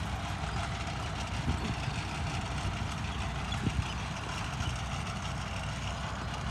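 John Deere 5310 tractor running steadily under load, pulling a super seeder working the soil, heard from some distance as an even rumble.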